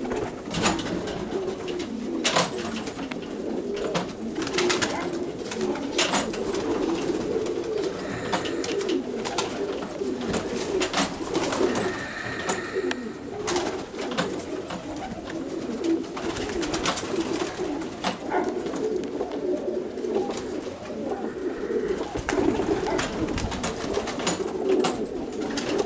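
Domestic pigeons cooing continuously in a low, rolling murmur, with sharp clicks now and then.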